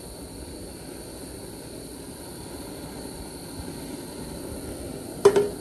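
Outdoor propane burner running with a steady rushing noise under a skillet. About five seconds in there is one sharp metal clank with a brief ring.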